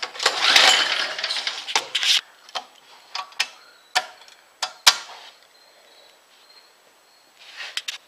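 Rustling handling noise for about two seconds, then half a dozen sharp clicks and knocks of hands working on the snowblower's metal parts and controls, spaced a fraction of a second apart; the engine is not running.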